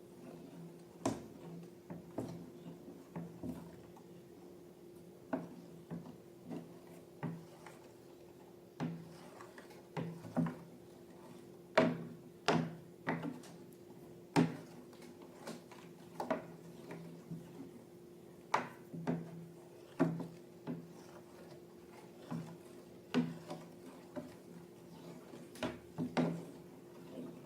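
Irregular clicks, taps and small squelches of slime and balloons being handled, over a steady low hum.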